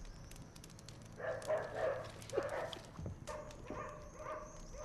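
A dog barking and whining in a string of short pitched calls.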